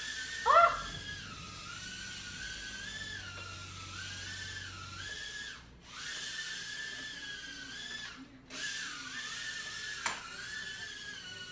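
Eachine E010 micro quadcopter's tiny brushed motors whining high-pitched, the pitch rising and falling with the throttle and cutting out briefly twice. A short loud voice-like sound comes about half a second in, and a sharp tap about ten seconds in.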